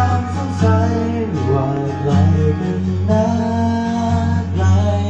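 Music with guitar playing steadily, a karaoke backing track of a Thai pop song.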